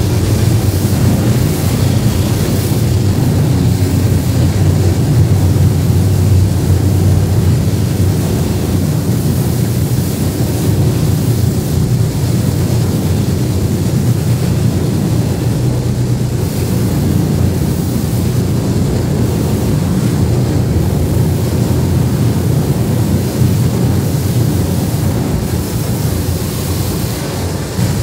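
Loud experimental electronic noise music: a dense, steady low rumbling drone with hiss on top, no beat and no breaks.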